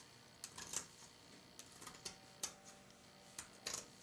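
Sewing shears snipping through a sewn fabric seam allowance, trimming it down: a run of short, faint snips at an uneven pace, about seven cuts.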